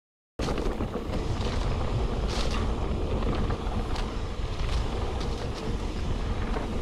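Wind buffeting the microphone of a mountain biker riding fast down a dirt trail, a steady rushing noise with scattered clicks and rattles from the bike and trail. It starts abruptly about half a second in.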